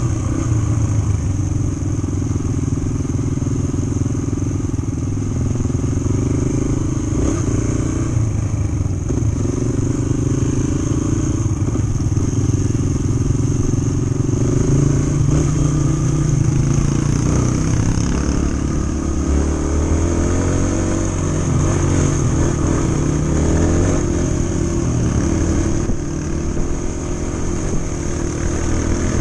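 Yamaha TT-R125's single-cylinder four-stroke engine running under the rider on a dirt road, its pitch rising and falling with the throttle, with a few knocks from the rough surface. A steady high whine runs underneath.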